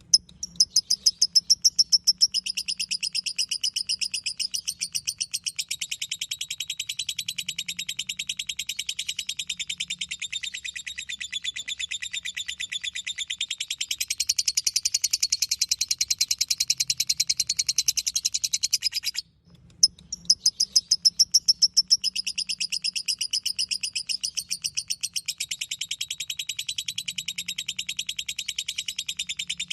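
Lovebird giving its long "ngekek" chatter: an unbroken run of rapid, high-pitched chirps, many a second. It breaks off for a moment about 19 seconds in and starts straight up again, loudest just after each start.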